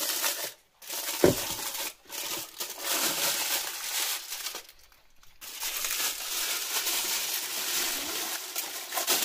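Aluminium foil crinkling and tearing as it is peeled off a hard slab of honeycomb toffee, in several rough stretches broken by short pauses, with a knock about a second in.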